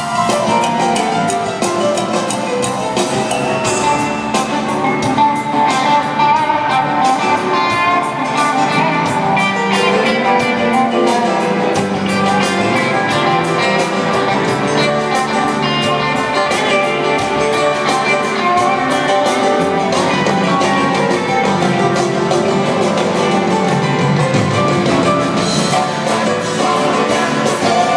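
Live rock band playing an instrumental stretch, with piano, electric guitar and drums keeping a fast, steady beat. It is recorded from the audience in a large arena.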